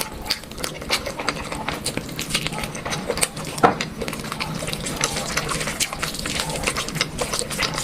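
A person chewing and eating, with many quick, irregular wet clicks and smacks.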